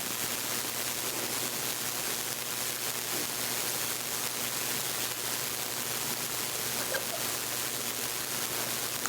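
Steady, even background hiss with no music or speech yet, while the workout music is being cued up.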